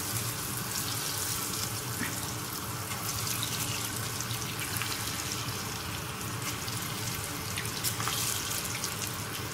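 Pinches of rice-and-lentil kunukku batter deep-frying in hot oil: a steady sizzle with scattered crackles and pops.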